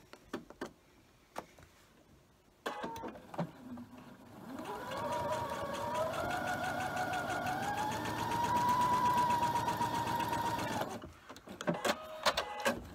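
Electric sewing machine stitching a seam through two layers of cotton fabric pieces: about four and a half seconds in the motor starts and speeds up, its whine rising, then it runs steadily for a few seconds and stops abruptly. Light handling clicks come before and after.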